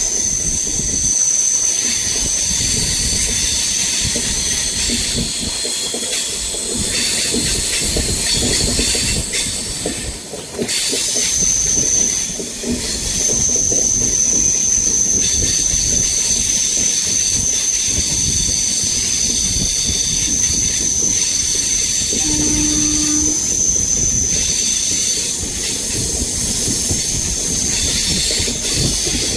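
Steel wheels of an express train of LHB coaches squealing as they take a curve: steady high-pitched screeching tones over the rumble of the wheels on the rails.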